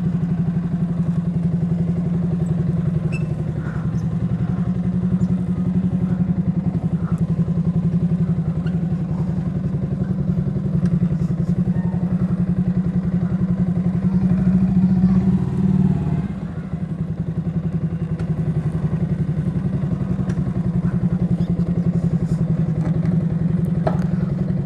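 Yamaha R15 V3's 155 cc single-cylinder engine idling steadily, warm after about an hour's riding. Its level dips slightly about 16 seconds in, with a few faint ticks.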